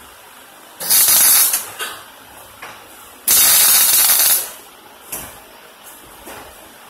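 MIG welder arc crackling in two short loud bursts of about a second each, like tack welds, with a few faint ticks afterwards.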